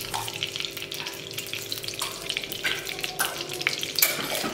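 A spoonful of ghee sizzling and crackling as it melts in a hot nonstick kadai.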